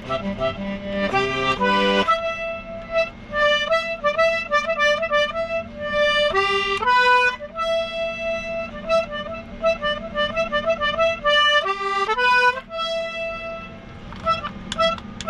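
Beat music being made: a melody of short, repeated pitched notes with quick runs and a few held notes, over a steady low drone.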